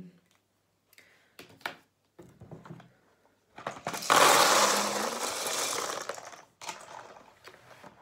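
Dry pasta shells poured from an enamel pan into a plastic tub: a loud rattling rush of pasta lasting about three seconds, starting a few seconds in. Light knocks of the pan and tub being handled come before and after.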